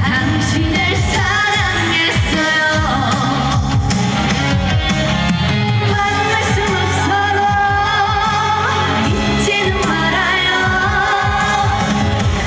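A trot song performed live through a PA: a woman singing a held, wavering melody with vibrato over amplified accompaniment with a steady beat.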